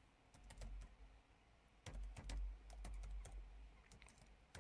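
Faint typing on a computer keyboard: quick, irregular key clicks, with a short pause about a second in.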